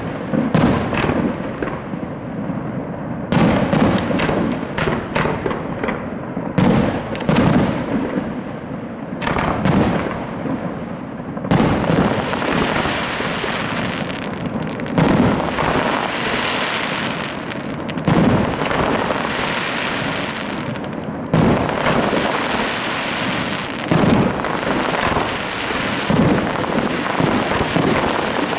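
Aerial fireworks display: shells bursting in rapid succession, many sharp bangs. From about twelve seconds in, the bangs merge into a dense, continuous din.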